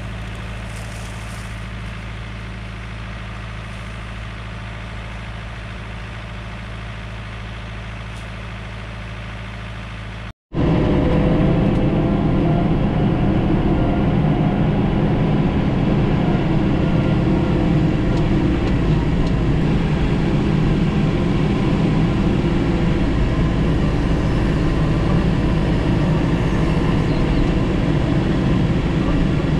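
John Deere 4066R compact tractor's diesel engine running steadily. After a brief break about ten seconds in, the engine is heard much louder and closer, from the operator's seat, as the tractor carries brush in its loader grapple and works into a brush pile.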